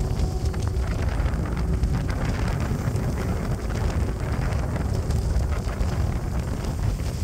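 Wind buffeting the microphone with a heavy, steady low rumble, over surf washing and small waves breaking in the shallows.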